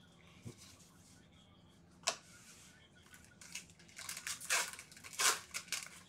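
Foil trading-card pack wrapper being crinkled and torn open by hand, in a run of sharp crackles that is loudest about four to five seconds in. A single sharp click comes about two seconds in.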